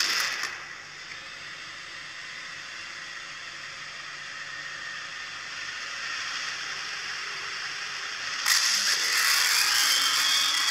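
Hissing static noise that starts with a sudden burst, slowly swells, and jumps louder about eight and a half seconds in.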